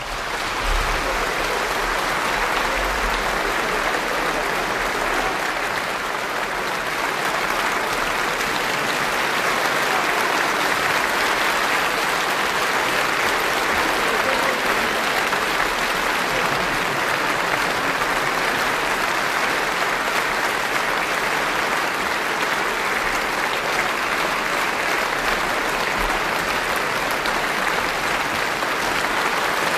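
Sustained applause from a large concert-hall audience.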